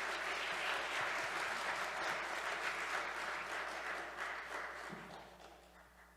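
Congregation applauding, steady for about four seconds, then fading out near the end.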